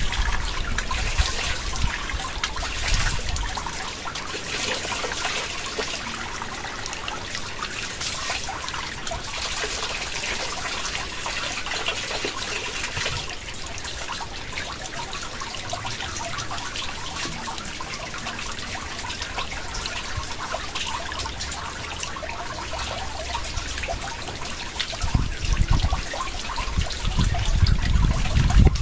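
Steady water noise, a fine hiss of trickling or falling water, with gusts of wind buffeting the microphone at the start and again near the end.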